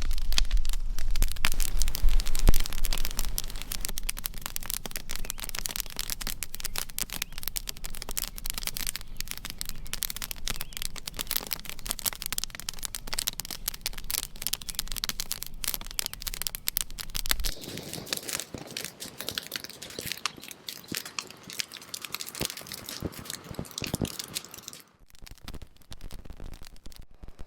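Heavy rain pelting a tent, a dense crackle of countless drops on the fabric. A low rumble runs underneath and drops away suddenly about two-thirds of the way through.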